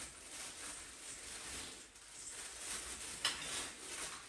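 Light rustling and handling noise as Christmas tree ornaments are picked out and hung, with one sharp click a little past three seconds in.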